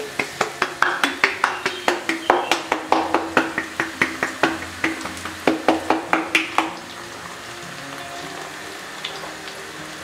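A hand slapping the base of an upturned bottle of tomato passata to drive the sauce out, about four slaps a second that stop near seven seconds in. Garlic sizzles softly in hot oil underneath.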